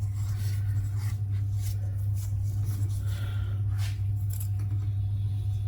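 A few faint clicks and light taps of engine parts being handled, over a steady low hum.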